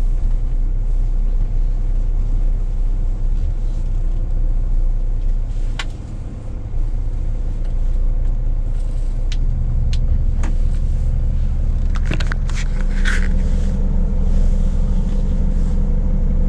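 Scania S500 truck's V8 diesel engine running at low revs, heard from inside the cab while the truck manoeuvres slowly; the engine note shifts about halfway through. A few sharp clicks and a short hiss come in the second half.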